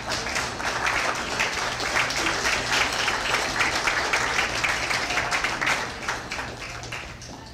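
A roomful of people applauding, the clapping building and then dying away near the end.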